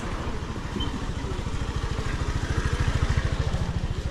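A motor vehicle engine running close by with a steady, rapid low pulse, growing louder to a peak about three seconds in, then easing off.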